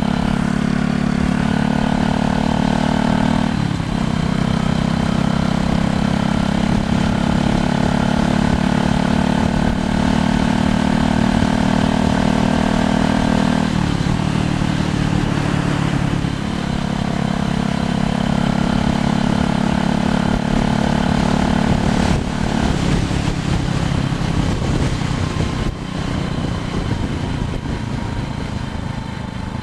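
An engine running steadily at an even pitch, which briefly drops and shifts several times.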